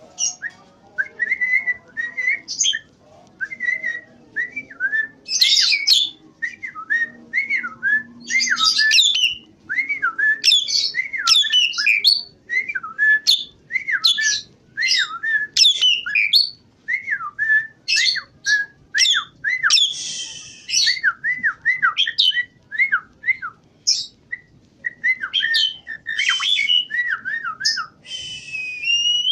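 Javan pied starling (jalak suren) in full, vigorous song: a long unbroken run of wavering whistled notes broken every few seconds by harsher, rasping phrases.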